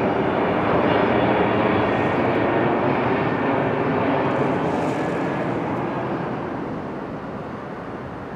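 Airbus A330-300 airliner on landing approach, its twin jet engines making a steady rumble with a faint whine as it passes close by, fading away over the last few seconds.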